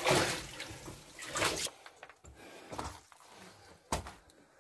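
Splashing footsteps wading through shallow water in a mine passage, in uneven surges that stop about a second and a half in, followed by a few faint knocks.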